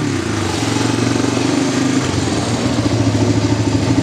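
Honda ATV engine running steadily at low speed as it is ridden, with an even pulsing beat.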